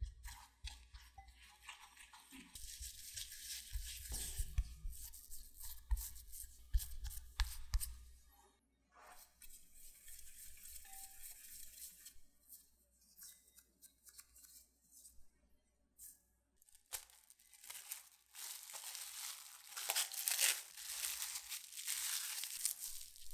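A spatula scrapes and stirs powdered sugar and almond flour in a glass bowl, with soft knocks against the bowl. Then come a few quieter seconds of hands kneading the marzipan. From about two-thirds of the way in, plastic cling wrap crinkles loudly as it is wrapped around the marzipan ball.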